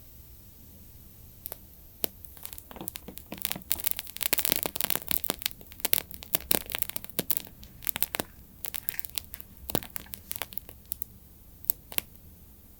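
Wooden wick of a homemade candle crackling as it burns: irregular sharp pops, coming thickest for a few seconds in the middle, then thinning out.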